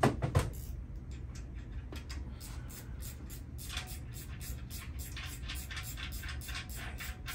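Two sharp metal knocks, then a steady run of quick light clicks, about five a second, from hand tools working on the oil pan and plug of a 7.3-liter Ford Godzilla V8 on an engine stand, over a low steady hum.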